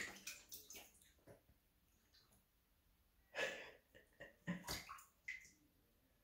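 A serval pawing at water in a bathtub: a few short, faint splashes and knocks against the tub, in a cluster in the first second and again around the middle.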